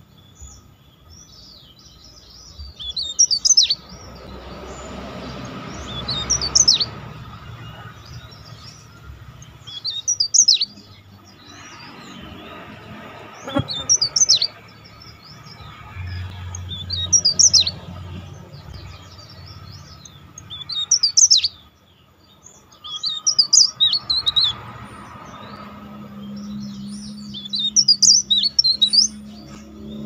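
A caged tralis songbird singing: about eight short bursts of high, fast chirping phrases, each a second or two long and a few seconds apart.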